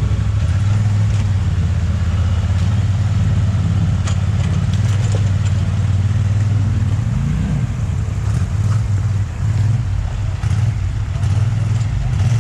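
ATV engine running at low revs while crawling over creek rocks, with a brief rise in revs about seven seconds in.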